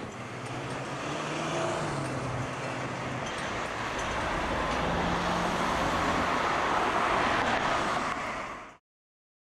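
City street traffic with trams and road vehicles going by, growing louder as a vehicle passes close, then cutting off suddenly near the end.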